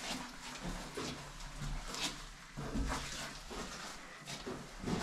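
Boots and hands knocking and scraping on an old wooden mine ladder during a climb down, in scattered irregular clicks and scuffs, with a couple of louder knocks about two to three seconds in.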